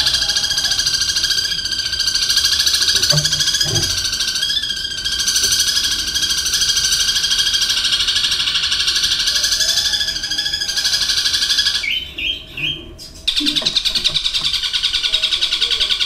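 Long-tailed shrike (cendet) singing a long, fast, unbroken rattling chatter, part of a song packed with calls copied from other birds. Around twelve seconds in the chatter stops briefly for a few short high notes, then starts again.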